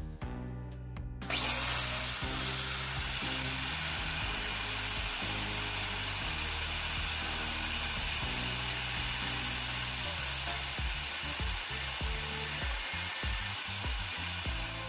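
Angle grinder starting about a second in and running with its cutting disc while a nail spun in a cordless drill is ground against it to a point: a steady, high grinding noise that turns uneven near the end.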